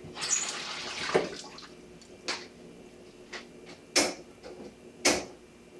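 Cloth rustling close against the microphone for about a second and a half, then a few sharp clicks and knocks, about four in all.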